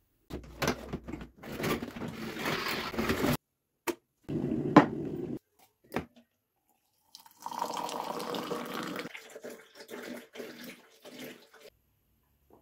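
Water running and being poured in a few short, separate stretches, among them a kettle pouring into a mug, with a sharp click about five seconds in.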